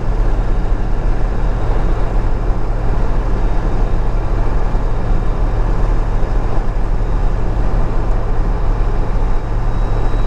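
Ford 7.3L Power Stroke turbo-diesel V8 pickup under way, a steady low engine drone mixed with road noise, heard from inside the cab.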